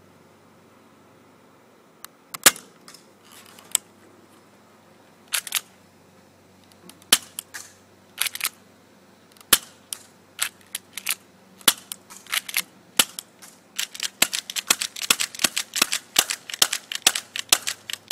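An airsoft pistol firing BBs, each shot a sharp click. The shots come singly, a second or more apart, at first, then several a second in the last few seconds.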